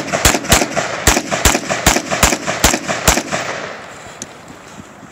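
AR-style rifle fired in a quick string of about nine shots, roughly 0.4 s apart, with the echo trailing away over a second or so after the last shot.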